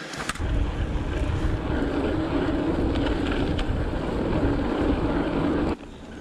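Steady rushing noise of a mountain bike ridden fast, with wind on the camera microphone and tyre rumble from the trail. It stops abruptly near the end.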